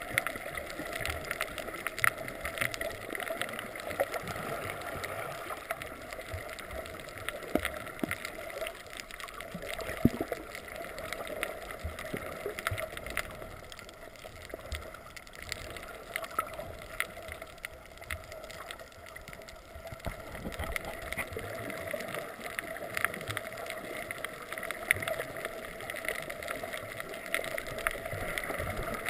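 Underwater sound picked up through a GoPro's waterproof housing: a muffled, steady rush of water with many scattered sharp clicks.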